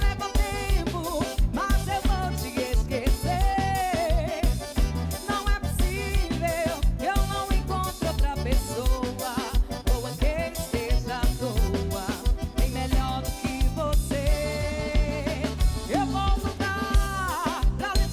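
A song with a lead vocal over a steady drum and bass beat.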